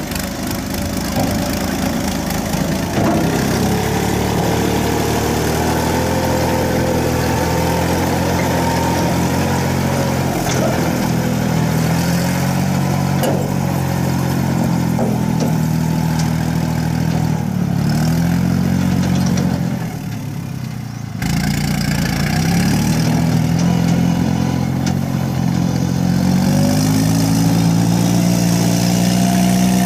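Yanmar C30R crawler carrier's diesel engine running as the tracked dumper drives, its pitch rising and falling with the throttle. The engine drops off briefly about twenty seconds in, then comes back and climbs in pitch near the end.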